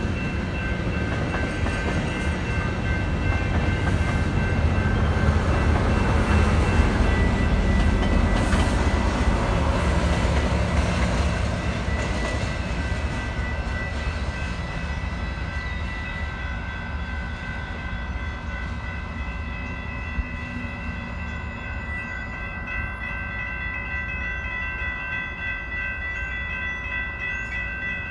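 Metrolink commuter train running past a grade crossing, loudest about a quarter of the way in and then fading as it clears, while the crossing's warning bells ring steadily.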